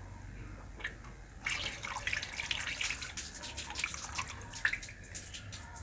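Water splashing and dripping at the open priming port of a centrifugal water pump as a screwdriver works in the plug hole, with small clicks; the pump casing is full after priming. The splashing starts about a second and a half in.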